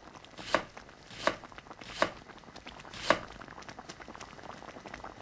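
Kitchen knife chopping a daikon radish on a cutting board: four sharp chops about a second apart, then a run of quicker, lighter cuts.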